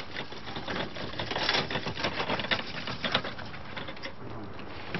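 Irregular clicking and tapping, a quick cluster of clicks about a second and a half in, then sparser clicks.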